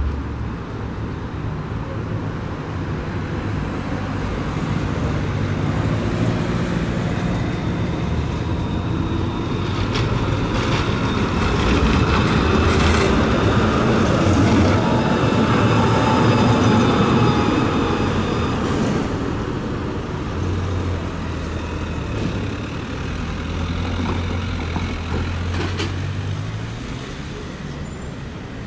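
A low-floor tram passing close by, its steel wheels rumbling on the rails, swelling to loudest about halfway through with a high whine over the rumble. A low engine hum of street traffic runs underneath and comes to the fore near the end.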